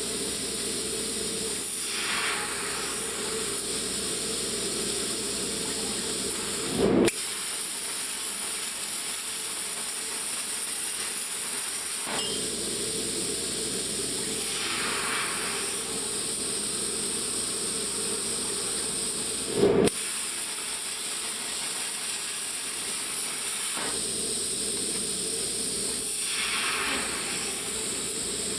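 CNC plasma cutting torch hissing steadily as its arc and compressed air cut metal, with two short, louder bursts about thirteen seconds apart.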